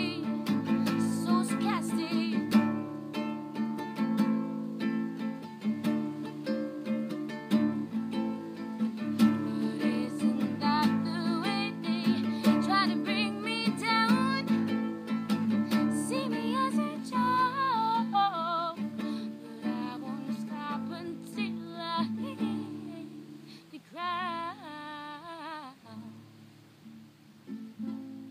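A woman singing to her own acoustic guitar, the chords strummed and plucked steadily under a wavering, vibrato-laden vocal line. Both get quieter over the last few seconds.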